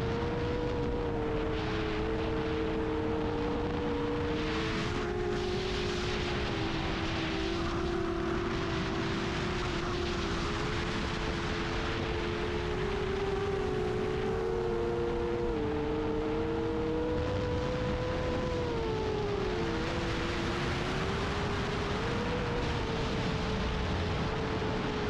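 FPV quadcopter's motors and propellers whining steadily, several tones drifting up and down and crossing as the throttle changes, over a rush of wind noise.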